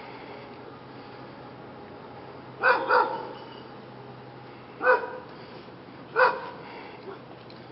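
A dog barking: a quick double bark, then two single barks a couple of seconds apart.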